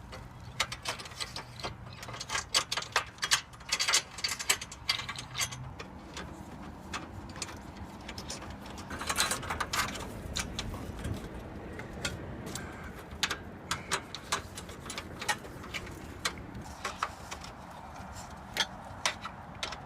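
Irregular runs of sharp metallic clicks as the solar panel's end clamps are fitted onto the mounting rails and nipped up to hold the panel.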